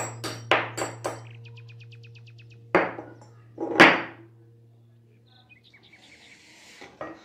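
A wooden spoon knocks and scrapes against a glass mixing bowl as sticky dough is knocked off it: quick knocks in the first second, then two louder knocks about three and four seconds in. A hand then works through dry flour with a soft rustle. A steady low hum lies underneath and stops about six seconds in.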